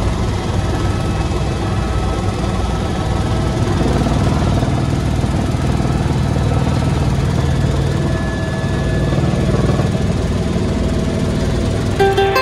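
Helicopter cabin noise in flight: a steady low drone from the rotor and turbine, with faint steady higher tones over it, heard from inside the cabin. Guitar music comes in right at the end.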